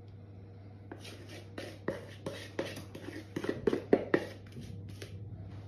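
Cake batter being scraped out of a mixing bowl into a loaf tin: a quick run of short scrapes and soft knocks, about three a second, starting about a second in.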